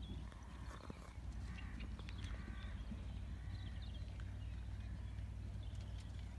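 Faint hoofbeats of a Connemara-type pony cantering on grass, under a steady low rumble. A few short, high pitched calls come and go in the first half.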